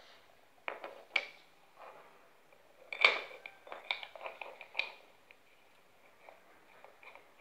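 Small metal PCP air-gun fittings (a gauge adapter and a steel quick-disconnect) being handled and set down on a concrete floor: a few sharp clicks and knocks, the loudest about three seconds in, followed by a quick run of lighter clicks.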